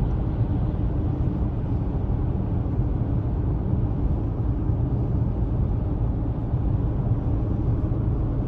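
Car driving on a snowy road: a steady low rumble of road and engine noise.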